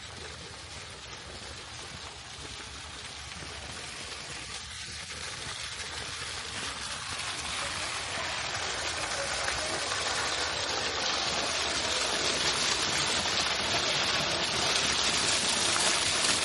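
Running water, an even rushing hiss that grows steadily louder throughout.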